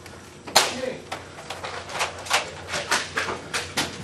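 Irregular sharp clacks and knocks: one louder knock about half a second in, then a run of lighter ones, two to four a second.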